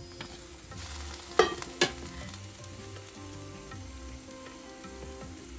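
Two sharp metallic clanks about half a second apart, each ringing briefly, from the aluminium lid of a steamer pot being handled; a short hiss comes just before them.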